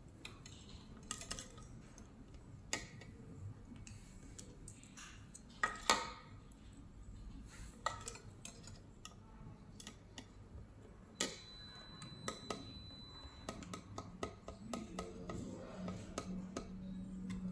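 Hands fitting a small speaker and its wiring into a plastic receipt-printer housing: scattered light clicks and taps of plastic parts, with two sharper clicks about six seconds in. Quick small ticks near the end as a screw is turned in with a screwdriver.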